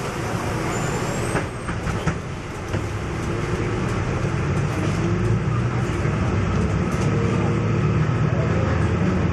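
Cabin sound of a MAN NL222 low-floor city bus under way: its diesel engine and road noise make a steady low rumble, with a faint whine rising in pitch near the end as the bus gathers speed.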